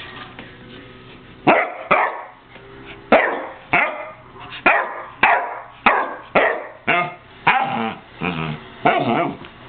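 Basset hound barking in a steady string, about two barks a second, starting about a second and a half in; the later barks are longer and more drawn out.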